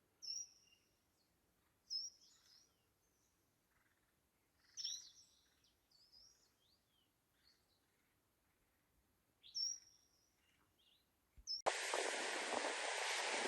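Small birds calling: several short, high-pitched chirps and twittering phrases, spaced a few seconds apart, over a quiet background. Near the end the sound cuts abruptly to a loud, steady rushing noise.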